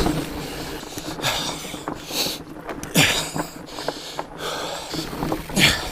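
A heavy-set rider breathing hard while pedalling uphill, with several loud puffs of breath. Sharp clicks and rattles come from the fat bike rolling over rocks and roots.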